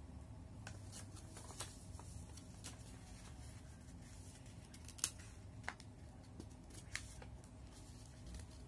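Origami paper being handled and folded: scattered light crinkles and clicks, the sharpest about five seconds in, over a faint steady hum.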